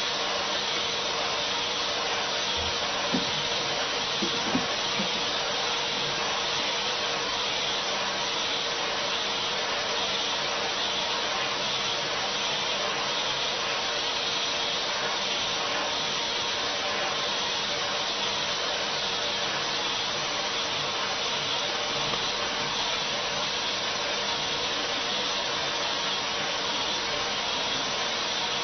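Vacuum cleaner running steadily: a constant rush of air with a steady motor hum, with two brief bumps a few seconds in.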